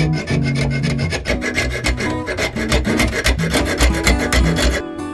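Steel repair patch being hand-filed in a bench vise: fast, continuous rasping strokes of the file on the metal edge, stopping abruptly just before the end.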